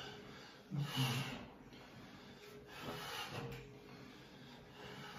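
Rubbing and rustling of clothing and body against a padded treatment table as a patient is pressed and shifted during a manual back manipulation, with a louder swish about a second in and another near three seconds.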